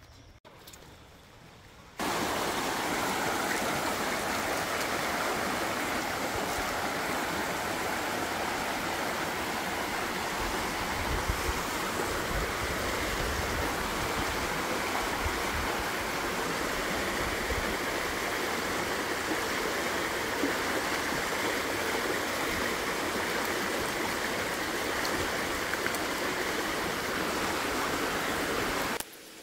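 Shallow rocky creek running steadily over stones, with water splashing around feet wading through it. The sound starts abruptly about two seconds in and cuts off abruptly just before the end.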